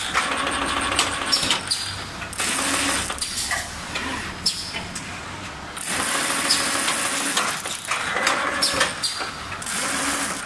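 Automatic protective-film laminating machine running with aluminium profiles on its roller conveyor: a steady mechanical rattle and hiss with sharp clicks and knocks. It swells and eases every couple of seconds.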